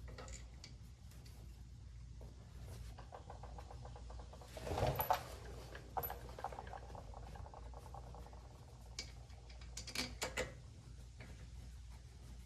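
Small metal clicks and rattles as a brake caliper's bolts are threaded in by hand, with a brief burst of quick ticking and rattling about five seconds in and a few sharp clicks near the end, over a steady low hum.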